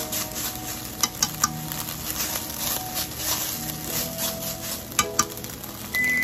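A bundle of wooden chopsticks stirring and scraping crumbled minced chicken around a frying pan, with frequent clicks of the sticks against the pan; the meat is cooked dry, with no liquid left. A short high beep near the end.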